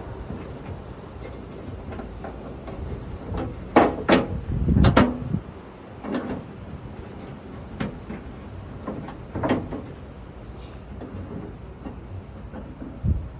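Scattered metal clanks and knocks from hand work on a pickup tailgate's lock mechanism, loudest in a cluster about four to five seconds in, then single knocks every second or two.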